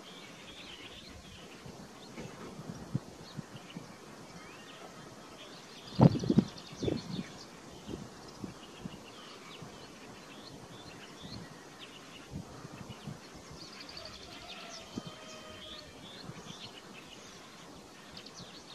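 Small birds chirping on and off over a faint outdoor hiss. A few dull thumps about six seconds in are the loudest sounds.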